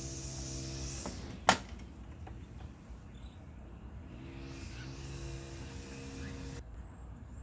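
A steady mechanical hum with a high hiss that cuts off about a second in, a sharp click, then the hum again for about two seconds near the end, sliding up in pitch as it starts and stopping abruptly.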